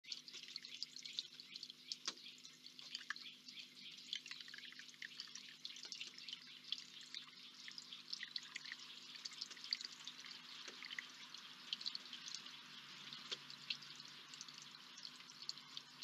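Small stone water feature trickling and dripping into a shallow basin: a faint, steady patter of drops.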